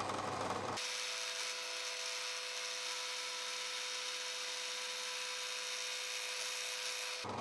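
Pillar drill bit boring into an epoxy resin casting block, widening a pre-drilled hole: a steady high-pitched cutting noise with a constant whine. It starts sharply about a second in and stops just before the end. Around it the drill's motor runs with a low hum.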